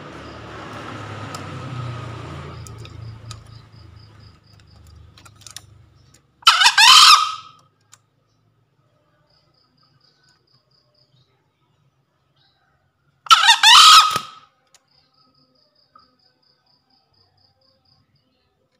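Green junglefowl cock crowing twice, each a short hoarse call of about a second, the two some seven seconds apart. Before the first crow, a low rumble fades out.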